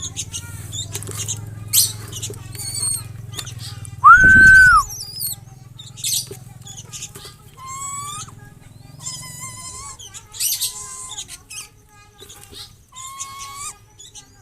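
Aviary birds chirping and calling, short chirps and gliding whistles, with one loud drawn-out call about four seconds in. A low steady hum underneath stops near the end.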